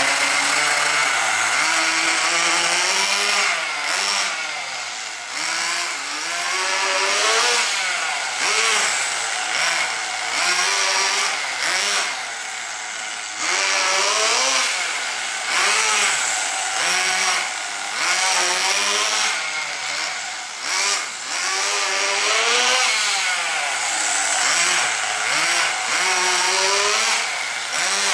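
Tamiya TGX 1/8-scale RC car's two-stroke nitro glow engine revving up and down over and over as the car is driven around, its pitch rising and falling every second or two.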